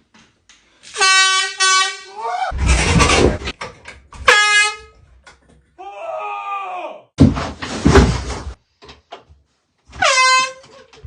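Air horn blasting in short loud honks, about three times: a long one about a second in, a shorter one in the middle and another near the end. Loud startled yelling breaks out between the blasts.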